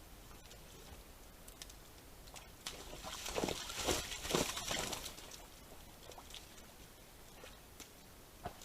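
A red deer stag moving in a muddy forest wallow: a short spell of mud and water splashing and sloshing about three seconds in, lasting about two seconds, among faint scattered ticks.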